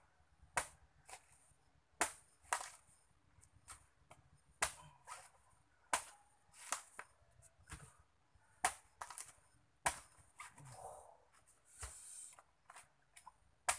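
A machete chopping into the husk of a young green coconut to open it: a dozen or more sharp, dry strikes at irregular intervals, roughly one a second.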